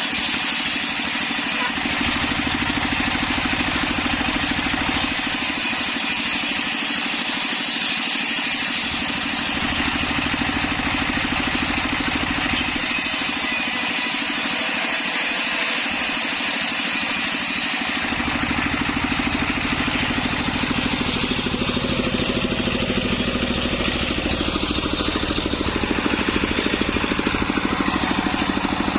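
Engine of a homemade circular saw rig running steadily at a constant speed. About two-thirds of the way through, the sound grows fuller and slightly louder.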